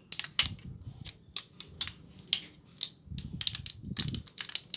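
Thin copper foil crinkling and crackling as it is handled and bent by hand: a quick, irregular run of sharp crackles.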